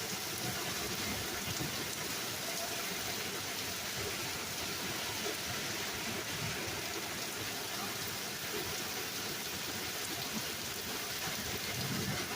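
Rain falling steadily, a constant hiss of rain on hard surfaces.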